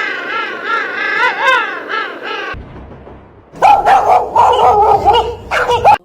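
Animal calls: a wavering, warbling pitched call lasting about two and a half seconds, then after a short pause a run of loud, short, repeated yapping calls.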